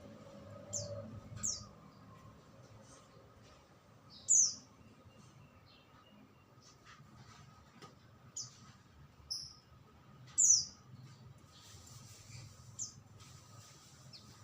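A songbird giving short, sharp, high chirps that sweep downward in pitch, about seven of them at irregular intervals, two of them much louder than the rest.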